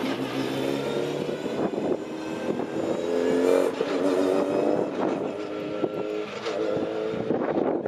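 Formula 4 single-seater race car's engine running at low revs as it pulls away down the pit lane, the engine note shifting in pitch in steps several times.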